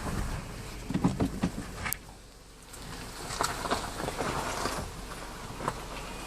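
Nissan X-Trail SUV fording a creek: its engine runs low under a rush of water noise, with scattered knocks. The sound drops away briefly about two seconds in, then comes back.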